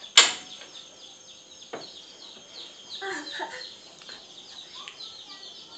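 Chickens in the background: a steady run of short, high peeping chirps, with a few lower clucks about three seconds in. A single sharp knock sounds just after the start.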